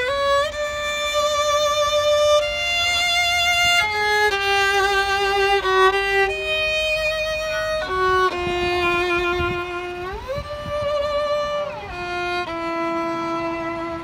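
Solo violin playing a slow melody of long held notes with vibrato, sliding up to a higher note about ten seconds in and back down near the end.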